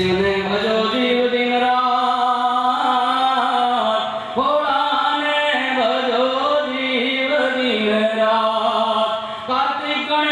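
A man singing a devotional chant into a microphone, in long held notes with slow pitch glides and brief breaths between phrases.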